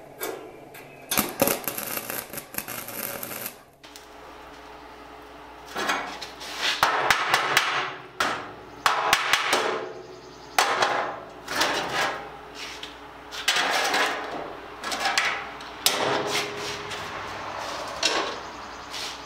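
Hammer blows on a steel sheet-metal bin, in irregular clusters a second or two apart, some with a short metallic ring. A couple of seconds of harsh hiss come just before the hammering starts.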